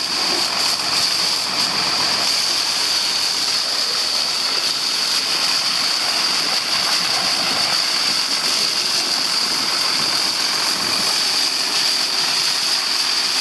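Powerful hose jet spraying steadily, hissing and splashing against a John Deere 7810 tractor's tyres and bodywork.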